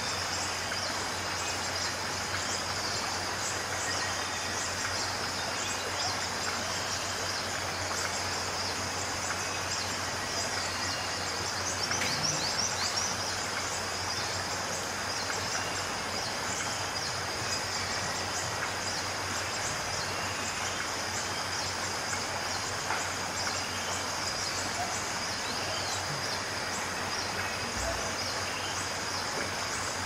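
Forest ambience: a steady high-pitched insect drone with many short bird chirps over an even hiss, the chirps busiest around the middle.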